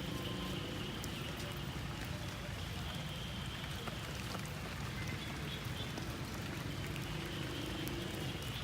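Rain patter: a steady hiss of falling water with scattered sharp drops, and a faint steady high tone in the background.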